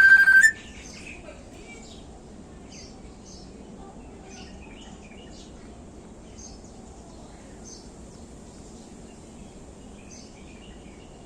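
Pet parrot giving one short, loud whistled call at the very start: a steady high note that turns up slightly at the end. After it, only faint scattered bird chirps over a low background hum.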